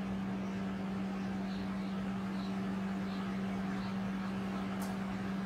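A steady low hum with a faint background hiss, and a few faint marker strokes on a whiteboard; a short tick near the end.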